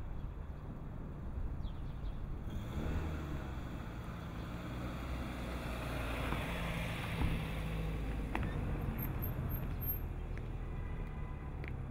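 A car driving past, its engine and tyre noise swelling to a peak about halfway through and then easing off over a steady low engine hum. A few faint clicks near the end.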